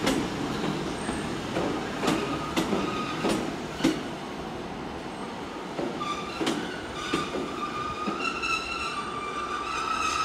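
Class 150 Sprinter diesel multiple unit slowing into the platform: its wheels click over the rail joints, then from about six seconds in its brakes set up a steady high squeal as it comes to a stand.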